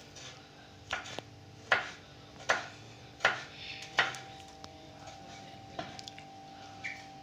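Kitchen knife chopping garlic cloves on a wooden cutting board: five sharp knocks at an even pace, then lighter taps.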